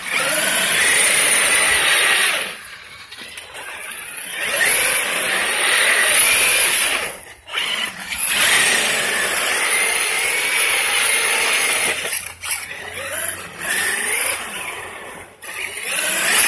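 Brushless electric RC car whining through repeated bursts of full throttle, several seconds each, rising and falling in pitch, with its tyres spinning and spraying on wet pavement as it does donuts with traction control off.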